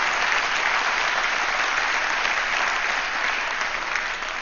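Large audience clapping, a dense sustained applause that begins to die down near the end.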